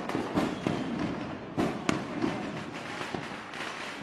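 Fireworks going off: a rapid, irregular run of pops and bangs over a steady crackling rumble, with the two loudest bangs about one and a half and two seconds in.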